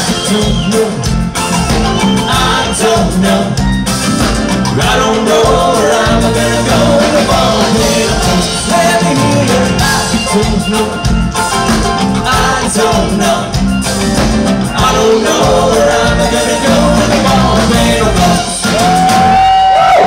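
Live band playing the instrumental close of a rock song with a steady drum beat, ending on a long held note near the end.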